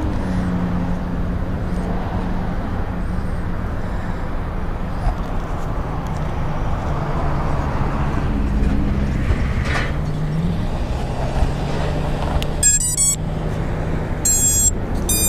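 A vehicle's steady low hum, its pitch drifting slightly, and near the end three short sequences of electronic beeps as the quadcopter's battery is connected: the ESCs sounding their start-up tones through the motors.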